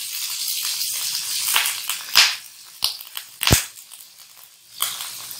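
Butter sizzling as it drops into hot oil in a non-stick frying pan, the hiss dying down after about two seconds. Several short scrapes of a silicone spatula against the bowl and pan, with one sharp knock about three and a half seconds in.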